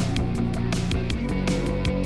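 Background music with guitar over a steady, fast drum beat.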